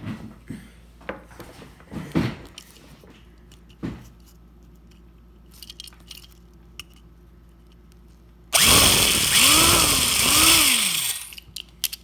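Power drill drilling into the metal base of a die-cast toy car. A few light knocks and handling noises come first. About two-thirds of the way in, the drill runs loudly for about two and a half seconds, its pitch rising and falling twice, then stops.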